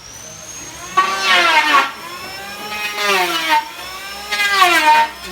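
Power tool running with a steady high whine, its pitch swelling and sagging in four loud pulses about a second and a half apart as it bites into the work.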